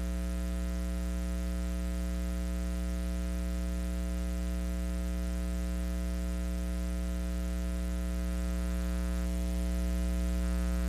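Steady electrical mains hum, a constant low buzz with many evenly spaced overtones and no change in pitch or level, typical of a ground-loop or interference fault in the audio feed.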